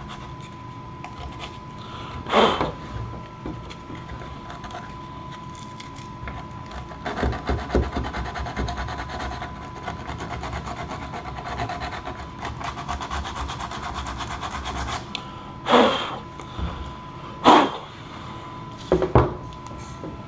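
60-grit sandpaper scuffing a plastic dash, a rapid scratchy rubbing that keys the surface for epoxy and is heaviest in the middle stretch. A few sharp knocks come about two seconds in and three times near the end.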